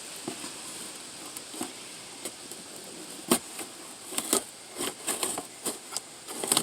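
Packaging being handled and opened: scattered light clicks and rustles, one sharper knock about three seconds in, then a quicker run of clicks and rustles near the end.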